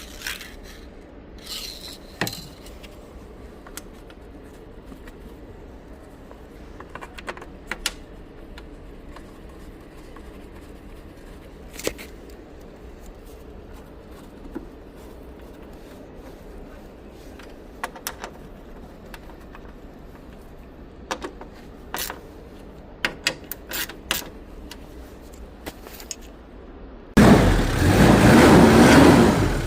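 Scattered light clicks and scrapes over a low background. About 27 seconds in, the Pajero's engine comes to life abruptly and loudly, rising in pitch as it revs.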